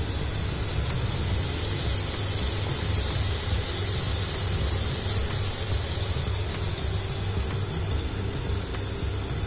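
Steady sizzle of sliced onions and ginger-garlic paste frying in oil in a wide metal pan, over a steady low rumble.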